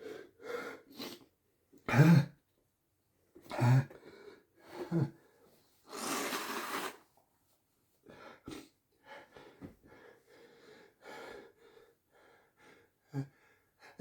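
A person's pre-sneeze build-up: short voiced gasps and catches of breath, the two loudest about two and four seconds in, a long noisy breath about six seconds in, then quieter sniffles and hitching breaths.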